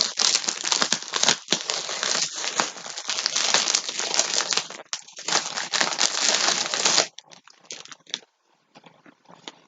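Plastic packaging of a yarn pack crinkling and rustling as it is handled. It stops about seven seconds in, leaving only faint rustles.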